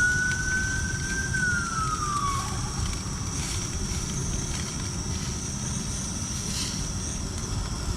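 A single distant siren wail that holds high, then slides down and fades about two and a half seconds in. It sits over a steady low rumble and a constant thin high-pitched hum.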